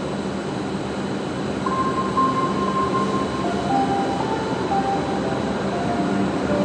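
W7 series Shinkansen train standing at the platform with a steady hum. From about two seconds in, a soft run of held tones steps from one pitch to another over the hum.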